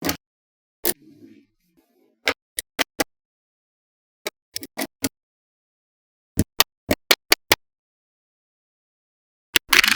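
Small magnetic balls clicking sharply as they snap onto one another, in quick clusters of two to six clicks with pauses between.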